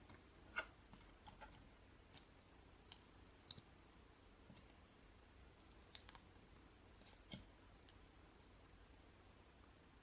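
Faint, irregular small plastic clicks and taps of LEGO pieces being handled and pressed together, with a quick cluster of clicks about six seconds in.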